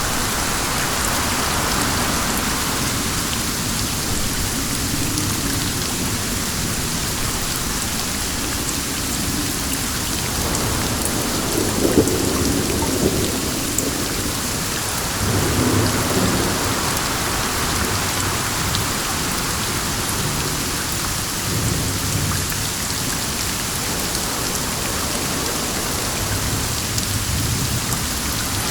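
Steady heavy rain with an even hiss. Two low rumbles of thunder swell up around the middle.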